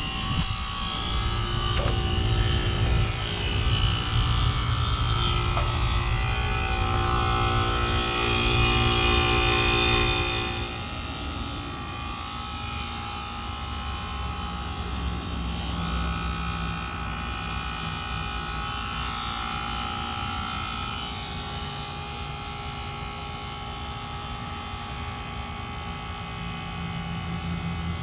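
Outdoor unit of a 1993 Carrier Tech2000 1.5-ton heat pump running: a steady hum with several steady tones. About ten seconds in the sound drops in level and its tones change, settling into a quieter steady hum.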